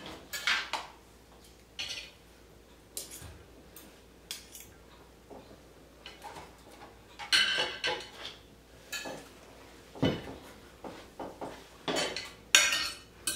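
Cutlery scraping and clinking against dishes while food is served out, in irregular short scrapes and clicks, with a duller knock about ten seconds in.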